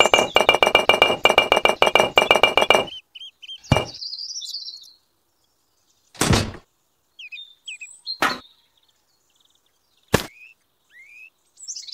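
Rapid clinking and clacking of miniature clay bricks being stacked on a toy truck bed for about the first three seconds. After that come four single sharp knocks as pieces are set down, with short bird chirps in between.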